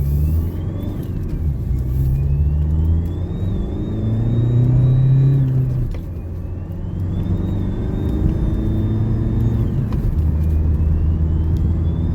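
Renault 1.6 dCi four-cylinder diesel pulling away and accelerating, with a thin high wail from the turbocharger that climbs, holds, then drops away, about four times. This is the 'wailing banshee' of a turbo with destroyed shaft bearings that is still making boost.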